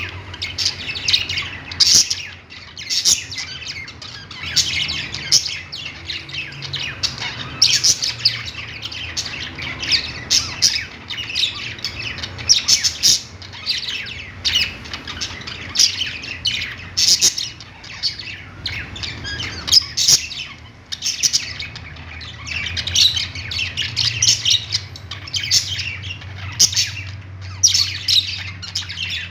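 A flock of budgerigars chirping and squawking without pause, many short calls overlapping, over a low steady hum.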